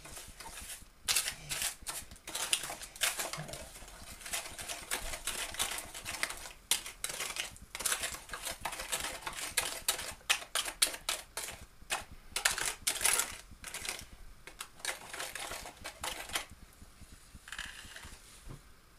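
Metal spoon scraping and clicking against the sides and bottom of an aluminium foil tray as a mixture is stirred and worked, in quick irregular strokes. It falls mostly quiet near the end.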